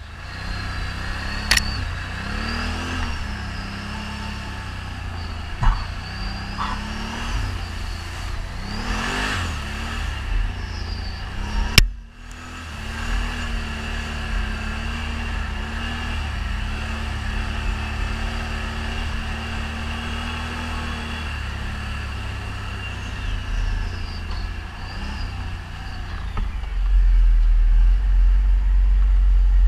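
ATV engine running and revving while riding, its pitch rising and falling. There is a sharp click about twelve seconds in.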